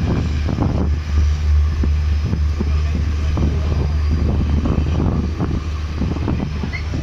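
Indian Railways passenger coach running along the track, heard from its open window: a steady low rumble from the wheels and running gear, wind buffeting the microphone, and irregular knocks and rattles from the wheels and coach.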